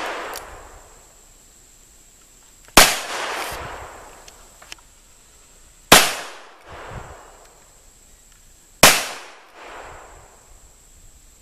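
.357 revolver firing handloaded rounds: three shots about three seconds apart, each trailing off in an echo.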